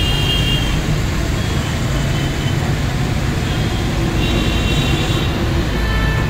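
Steady motor-vehicle and traffic noise, a constant low rumble, with a thin high whine that comes and goes, most plainly in the first second and again around four to five seconds in.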